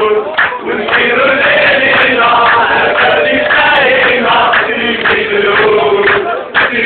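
A stand full of football supporters singing a chant together, loud and close, in long held notes.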